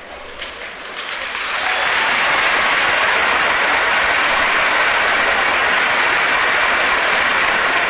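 Large crowd applauding, building over the first two seconds and then holding loud and steady.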